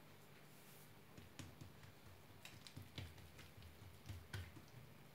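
Near silence, broken by a few faint soft taps and clicks of hands pressing and stretching thin msemmen dough flat on a granite countertop. The taps are scattered from about a second and a half in, the clearest two near the middle and just before the end.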